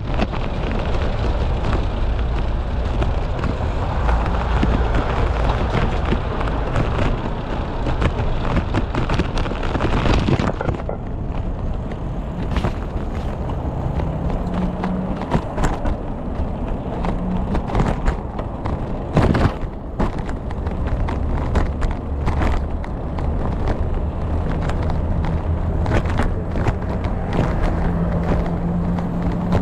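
Rumble and wind buffeting picked up by a camera mounted on a moving bicycle, with frequent sharp knocks and rattles as the bike goes over bumps. A hissing rush fills roughly the first ten seconds, then drops away, leaving the rumble and rattles.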